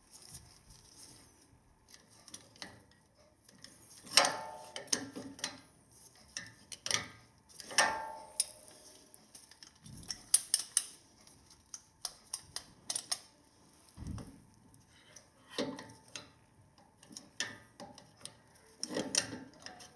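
Irregular metal clinks and clanks of a steel caliper piston spreader tool being fitted and worked against a four-piston front brake caliper and its pads, with two louder clanks that ring briefly in the first half.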